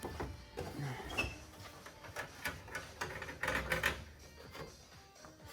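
Irregular light clicks and knocks of hand tools and metal exhaust parts being handled and fitted.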